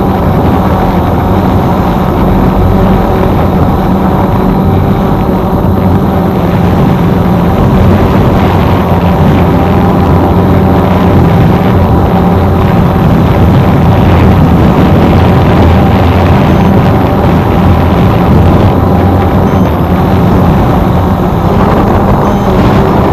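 Small camera drone's electric motors and propellers running steadily close to the microphone: a loud, even buzz with several steady tones.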